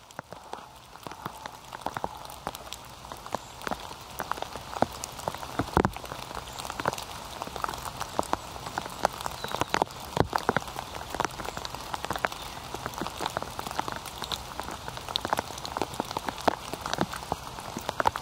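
Rain falling in a forest: a steady hiss of rain with many irregular sharp drop hits on the foliage, growing louder over the first couple of seconds.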